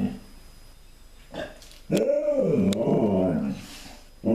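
Alaskan Malamute giving a short wavering howl about two seconds in. Its pitch rises, falls and wavers for about a second and a half.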